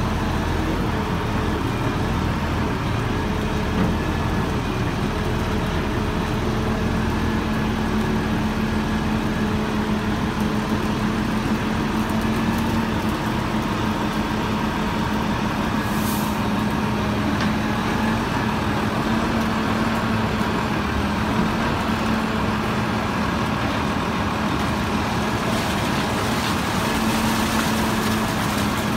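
Steady drone of a crane's engine and hydraulic pump working a BSV KSII 700-litre clamshell grab, with a held tone that wavers slightly in pitch. A short hiss about halfway through, and sludge sloshing near the end as the grab digs into the slurry.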